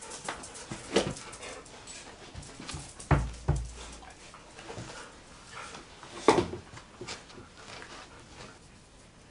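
Dogs moving about in a small tiled room: scattered claw clicks and knocks, two heavy thumps about three seconds in as a dog jumps up onto a padded chair, and a sharp knock a little after six seconds.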